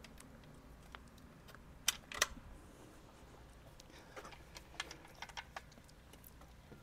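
Clicks and clacks of a Lectric XP 2.0 ST folding e-bike being handled as it is readied to fold: two sharp clicks about two seconds in, then a run of lighter clicks.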